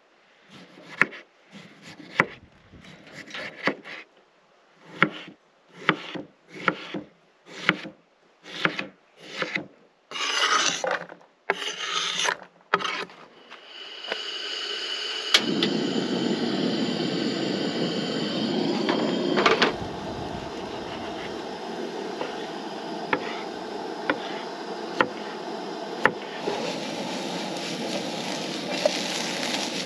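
A kitchen knife cutting through potatoes onto a wooden cutting board, about a dozen separate strokes, some longer and rasping. About halfway through, diced potatoes hit a hot pan on a propane camp stove and sizzle steadily, with occasional clicks of a utensil against the pan.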